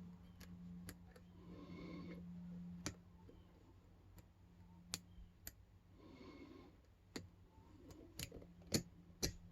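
Faint, irregular clicks of a lock pick working the spool pins of a small brass padlock, with about nine tiny clicks spread unevenly over the stretch and a steady low hum beneath.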